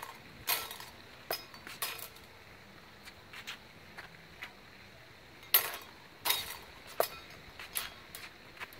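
Steel rapier blades clashing as cuts are parried: several sharp, ringing clinks, a few in the first two seconds and another run in the second half.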